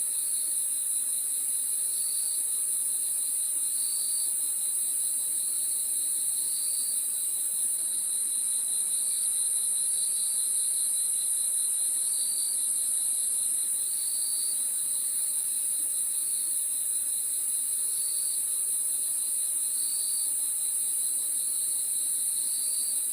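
Crickets chirping at night in a steady, dense, high-pitched chorus, with a lower chirp repeating about every two seconds over it.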